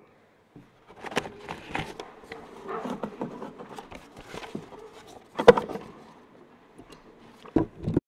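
Scattered clicks, rustles and soft knocks of handling at a wooden lectern, picked up close by a clip-on microphone. A sharp knock about five and a half seconds in is the loudest, and another comes near the end.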